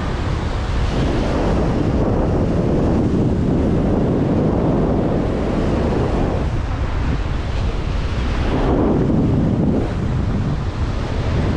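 Surf breaking and washing over the rocks, with strong wind buffeting the microphone. The wash comes in surges: one swells about a second in and lasts several seconds, and another comes around nine seconds in.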